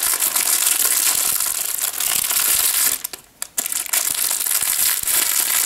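Clear plastic film and a plastic biscuit tray crinkling as they are pulled and handled, with a short pause about three seconds in.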